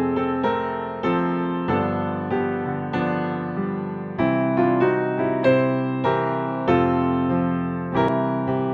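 Slow, gentle keyboard music with chords struck about once a second, each left to ring and fade before the next.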